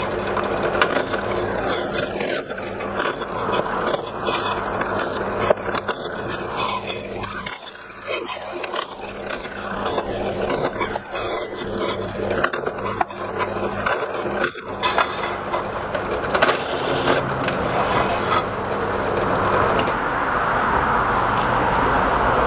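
Benchtop drill press running with a steady motor hum while its deburring bit scrapes the edges of drilled holes in a steel plate. There is a brief lull about 8 seconds in.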